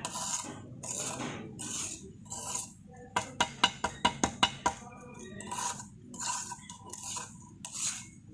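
Steel spatula scraping and smoothing wet soil paste in a small metal cone penetrometer cup, in repeated strokes about twice a second. Near the middle comes a quick run of about eight sharp taps.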